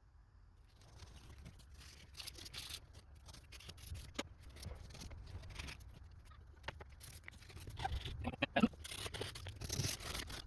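Handling noises: irregular scratching, rubbing and clicking as the knife and small tools are worked and moved about by hand. The clicks and knocks grow louder near the end.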